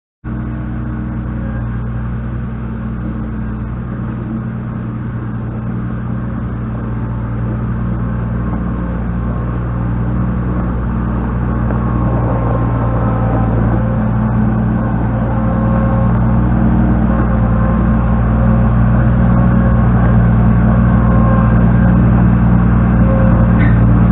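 A large engine running steadily at an even speed, slowly getting louder.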